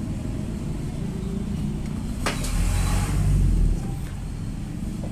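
Low steady engine rumble, swelling to its loudest about two and a half seconds in with a rising hiss, then easing again. A single sharp click comes just before the swell.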